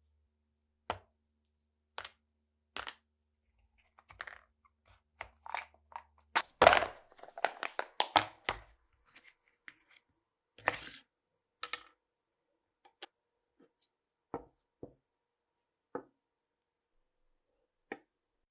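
Sharp metallic clicks and clacks of a small Bayard 1908 pistol's parts being handled: single clicks about a second apart, then a burst of clattering with the loudest clack in the middle, and scattered clicks after.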